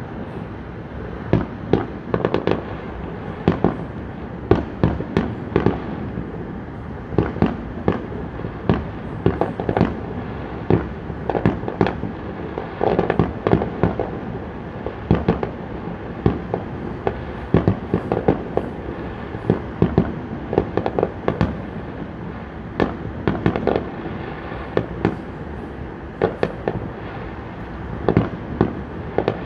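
Distant fireworks display going off in quick succession: an irregular, unbroken run of bangs and crackling pops, several a second, over a continuous background noise.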